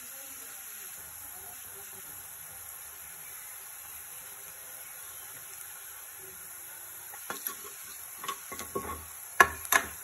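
Chopped onions frying in oil in a wok with a steady sizzle, on their way to light brown. From about seven seconds in a spatula scrapes and knocks against the pan as they are stirred, the loudest knock about nine and a half seconds in.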